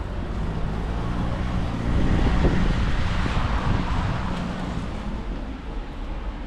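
A motor vehicle passing along the street, its sound swelling to a peak about two to three seconds in and then fading away.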